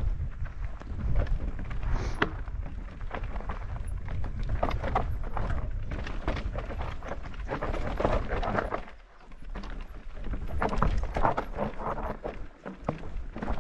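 Mountain bike clattering and crunching over a rocky trail, a steady run of knocks and rattles, with wind rumbling on the microphone; it eases briefly about nine seconds in.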